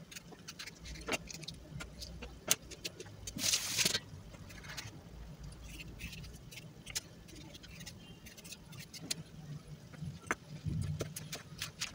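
Kitchen knife slicing green and red peppers on a wooden cutting board: light, scattered taps of the blade against the board, with a brief rustle between three and four seconds in and quicker taps near the end.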